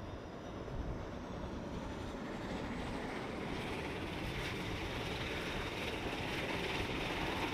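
Dash 8 Q400's Pratt & Whitney PW150A turboprop engine spooling up during start, with a high whine rising in pitch. A rushing noise builds and grows louder from about three seconds in as the engine accelerates. Wind rumbles on the microphone underneath.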